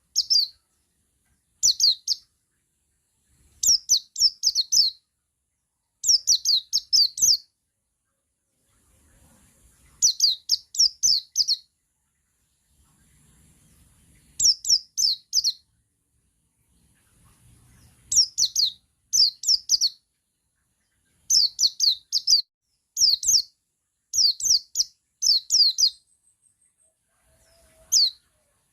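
Male buxtoni white-eye (pleci) singing its 'ngalas' song: short bursts of three to five quick, high, downslurred notes, repeated every second or two, with a few longer pauses between bursts.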